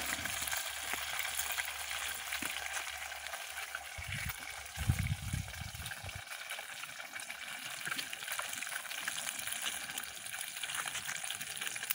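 Small piau fish frying in hot oil in a metal pot over a wood fire: a steady sizzle. A brief low rumble sounds about five seconds in.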